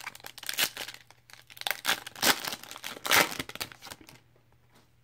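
Foil wrapper of a Panini Prizm basketball card pack being torn open and crinkled in several crackly bursts. The sound stops about four seconds in.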